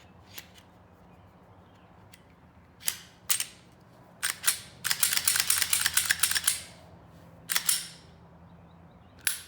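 Glock 43 pistol's slide being put back onto the frame and worked: a few sharp metal clicks, a second and a half of rattling metal-on-metal clicks, then two more single clicks.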